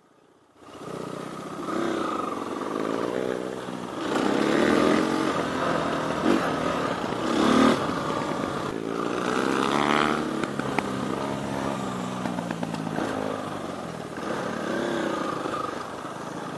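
Dirt bike engines running close up: a Husqvarna and a Honda XR100R. The pitch rises and falls several times with the throttle, starting abruptly about half a second in.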